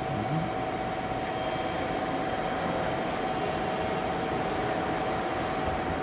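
EF81 electric locomotive hauling a container freight train approaches slowly, giving a steady mechanical hiss and rumble with a constant hum-like whine over it.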